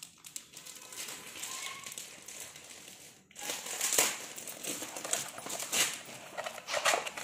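Cardboard and paper packaging rustling and crinkling as it is handled. The rustles are soft at first, then louder and more frequent in the second half.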